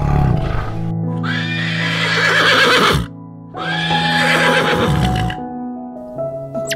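Horse whinnying twice, two long neighs separated by a brief pause, over background music.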